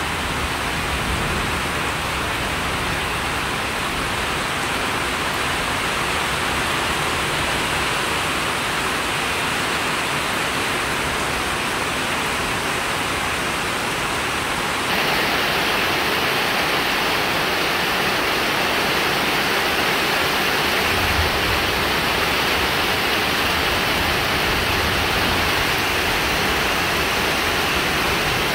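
Steady heavy rainfall, a constant hiss of rain on vegetation and wet ground, growing a little louder about halfway through.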